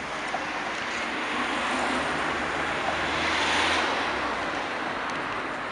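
Street traffic: a car passing on the road, its tyre and engine noise swelling to a peak about three and a half seconds in and then fading.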